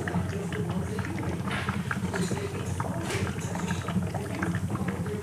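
HHO electrolysis cell bubbling and gurgling steadily as it makes gas at full output, with dense irregular crackling and popping over a steady low hum.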